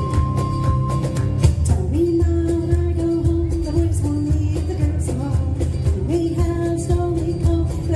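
Celtic band playing a medley live: acoustic guitar, electric bass and drums keep a steady beat under a melody of long held notes.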